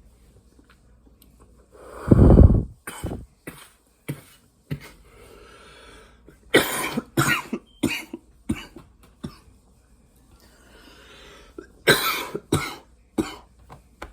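A man coughing hard in repeated fits after a big hit from a live resin vape cartridge. The loudest burst comes about two seconds in, with two more strong clusters of coughs in the middle and near the end and breathy exhaling between them.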